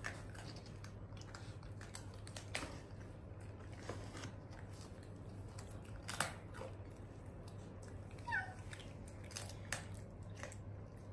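Pet monkey eating dried banana: scattered small clicks and rustles, one sharper click about six seconds in, and a short squeak from the monkey a little after eight seconds, over a steady low hum.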